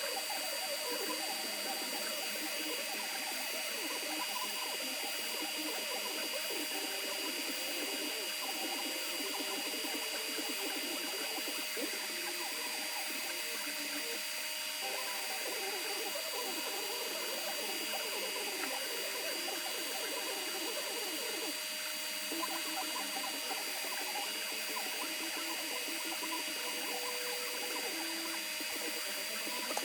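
Creality Ender 3 V2 3D printer running a print: its stepper motors sing in short, constantly shifting tones as the print head moves, over a steady high whine.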